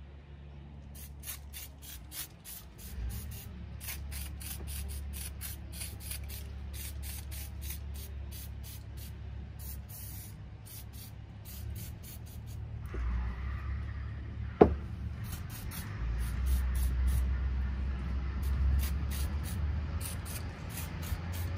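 Aerosol can of XPS anti-corrosive lubricant being sprayed in many short hissing bursts over a jet ski's engine. A single sharp knock about two-thirds of the way through is the loudest sound.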